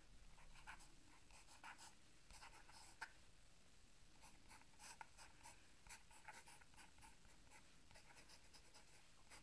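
Faint scratching of a felt-tip permanent marker on paper, writing characters in many short strokes, with a slightly sharper tick about three seconds in.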